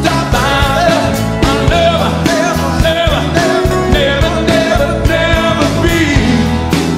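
Rock band playing live: electric guitars, bass and drums keeping a steady beat, with a voice singing over them.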